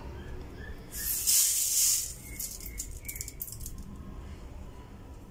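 Granulated sugar poured from a steel bowl into a plastic blender jar: a loud hiss of falling grains about a second in that lasts about a second, then a few scattered pattering grains as the pour trails off.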